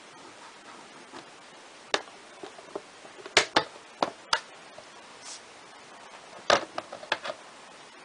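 Handling noise from a switched-off Airthereal AH1000 ozone generator held in the hand: scattered clicks and knocks of its plastic case, in two bunches about three to four seconds in and again about six and a half to seven seconds in, over a steady faint hiss.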